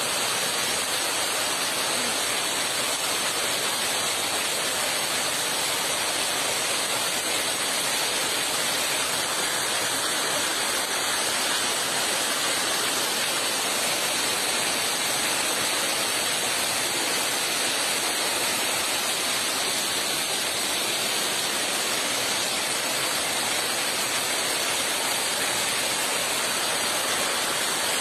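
Steady, unbroken rushing of water from the heavy rain and its runoff.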